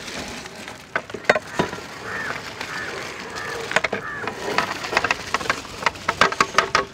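Rice being poured slowly from a metal vessel into a large aluminium pot of boiling water, over the pot's bubbling. Metal clinks and scrapes from the vessel and ladle against the pot grow quicker and denser over the second half.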